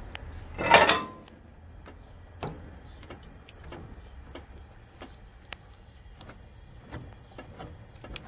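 A long-handled spoon stirring a large aluminium pot of beans in liquid, with scattered light knocks and scrapes against the pot. A louder scrape or clatter comes about a second in.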